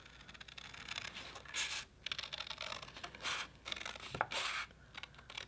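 Scissors snipping through painted paper in a series of short cuts, a few louder than the rest.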